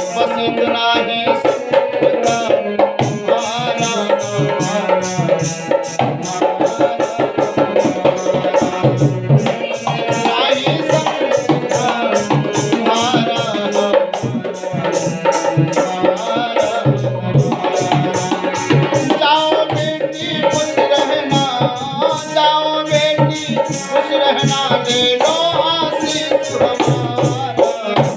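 Instrumental music: a melody line over a fast, steady tabla rhythm.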